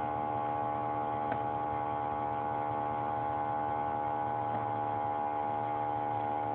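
A steady, even hum with many overtones that does not change, with a faint click about a second in.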